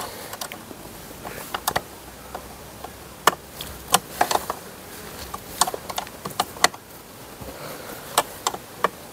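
Sharp metallic clicks and taps, a dozen or so at irregular intervals, from a hand tool tightening the clamp nut on a car battery's negative terminal.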